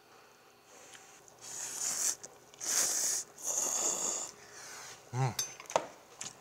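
Ramen noodles slurped from a bowl in three long, hissy sucking pulls. Near the end comes a brief vocal hum and a light click.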